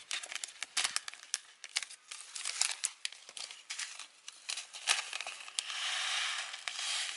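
Plastic seed packet crinkling as kale seeds are shaken out of it, a run of short crackles, with a longer steady rustle near the end as seeds are poured into the hand.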